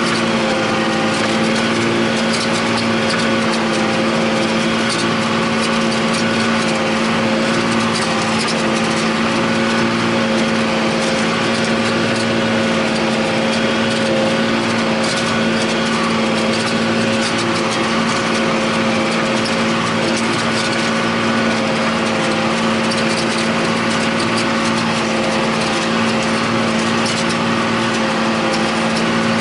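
John Deere 8100 tractor's six-cylinder diesel engine running steadily under load while pulling a disk ripper through the ground, heard from inside the cab. Its pitch and loudness hold constant throughout.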